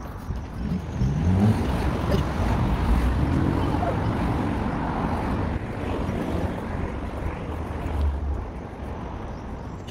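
City street traffic: a steady rumble and hiss of passing vehicles, with an engine rising in pitch about a second in.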